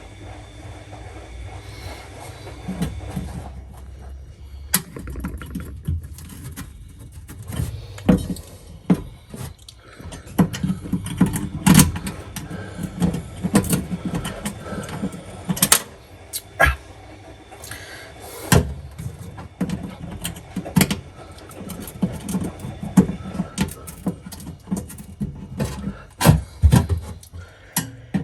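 Irregular metallic clicks and knocks of screws and a screwdriver as a replacement heater element is screwed back into an oven cavity, the screws started in one by one before being tightened.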